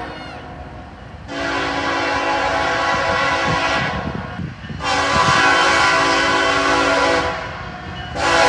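CSX locomotive air horn sounding its chord in long blasts: one about a second in, another through the middle, and a third starting near the end, over the steady low rumble of the train.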